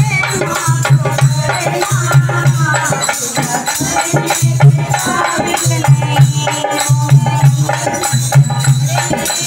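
Women's voices singing together over a dholak drum beaten in a steady, driving rhythm, with a shaken rattle or jingles keeping time.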